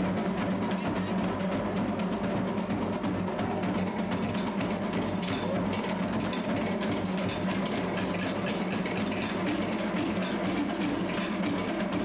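Live Polynesian drum music accompanying a dance: fast, even drumming with many strikes a second.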